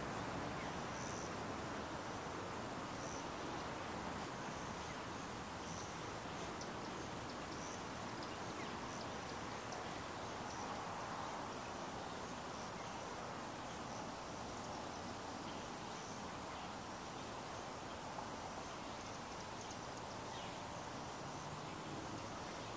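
Outdoor evening ambience: a steady background rush with short, high chirps repeating every second or two.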